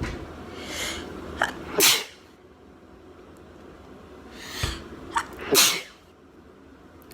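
A person sneezes twice, about four seconds apart. Each time there is a drawn-in breath and a short catch, then the loud sneeze.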